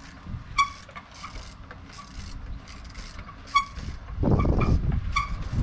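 Trials bike brakes squeaking in about five short, high chirps as they are grabbed and released while the bike hops and balances on its rear wheel. Under them is a low rumble that grows louder about four seconds in.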